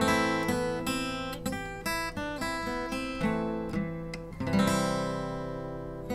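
Acoustic guitar music, with notes and chords plucked one after another, each ringing out and fading.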